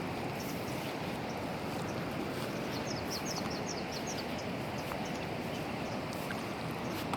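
Steady outdoor rushing noise, with a quick run of high bird chirps about three seconds in.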